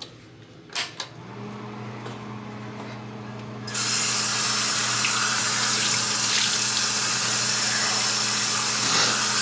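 Bathroom sink faucet turned on about four seconds in, water running steadily into the basin as someone washes their face. Before it comes a click and a low steady hum that goes on under the water.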